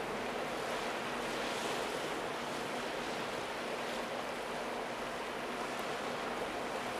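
Steady wind over choppy open water, a constant rushing noise with small waves lapping and some wind on the microphone.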